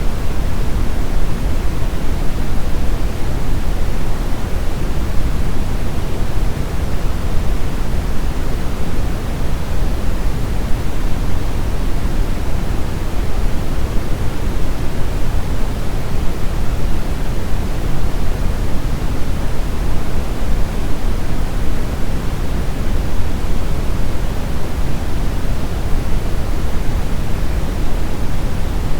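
Steady brown noise: an even, unchanging rushing hiss weighted heavily toward the bass, with no tones or events.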